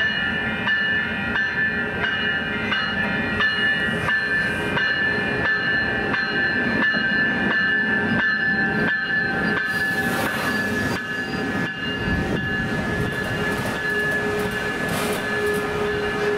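Passenger train running past, its wheels clicking over rail joints about twice a second, with several steady high tones over it and a lower tone joining about two-thirds of the way through.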